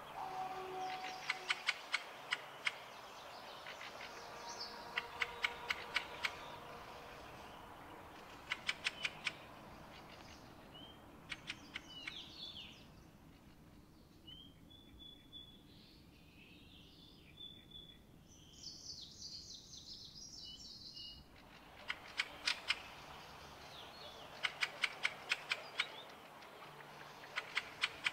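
Birds singing: a song of quick, sharp clicking notes repeated in short phrases every couple of seconds. In the middle stretch higher chirps, short whistles and a trill take over, then break off suddenly.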